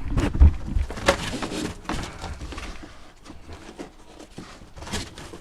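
Handling noises on a Tucktec folding plastic kayak as its seat strap is worked: scattered knocks, clicks and rustling, with the heaviest thumps in the first second.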